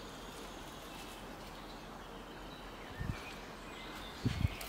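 Quiet outdoor ambience: a steady background hush with faint bird chirps, and a few low thumps about three seconds in and again near the end.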